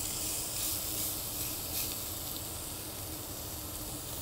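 Oiled beef tenderloin steak sizzling on a hot cast-iron grill pan just after being laid down: a steady hiss.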